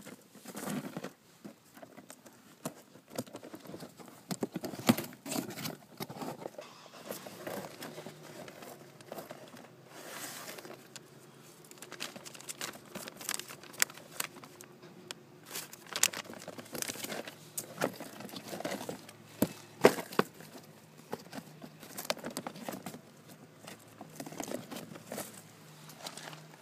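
Handling noise: irregular rustling and crinkling of packaging with many sharp knocks and taps, as things are moved about close to the phone's microphone. A few louder knocks stand out, about five seconds in and again near the middle.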